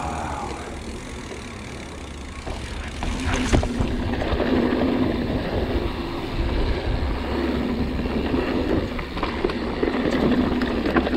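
Mountain bike riding fast down a dirt singletrack: steady tyre and wind rumble on the mic, with the bike knocking and rattling over bumps, one sharp knock about three and a half seconds in.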